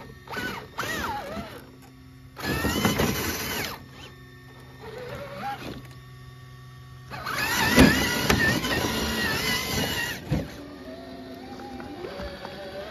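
Axial SCX6 RC crawler's electric motor and geared drivetrain whining in short throttle bursts as it climbs a tree root. There are three bursts, the last and longest lasting about three seconds.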